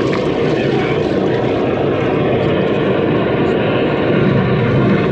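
Drain-jetting machine running steadily, its high-pressure hose working down a blocked drain.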